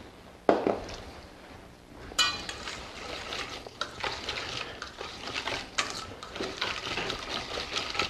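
Wire whisk beating oil and vinegar into a vinaigrette in a stainless steel mixing bowl: a knock, then a clink about two seconds in as the whisking starts, followed by continuous fast clinking and scraping of the wires against the metal bowl.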